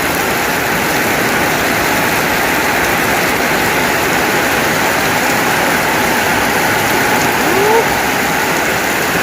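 Heavy rain pouring loudly and steadily, coming down faster than the roof can shed the water. A short rising squeak sounds about seven and a half seconds in.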